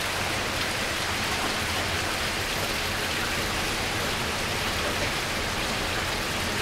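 Heavy rain from a tropical-storm squall, a steady downpour hissing on pavement and the surroundings.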